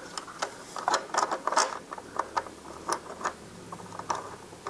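Irregular light clicks and taps of metal parts being handled: a stainless cap-head bolt being started by hand to fasten a fender eliminator bracket under a motorcycle's tail.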